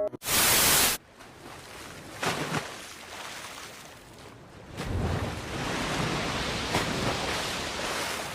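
Cartoon ocean surf and water splashing. It opens with a loud burst of hiss lasting under a second, and the water sound swells about five seconds in.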